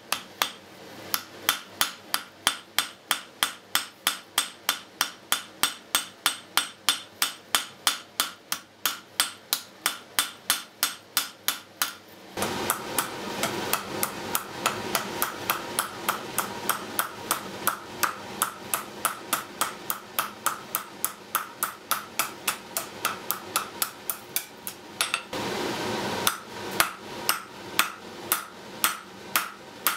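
Blacksmith's hand hammer striking hot steel on an anvil in a steady, rapid rhythm of about three to four blows a second, each blow with a short metallic ring. About twelve seconds in, a steady rushing background noise comes up under the strikes. The hammering pauses for about a second near the end.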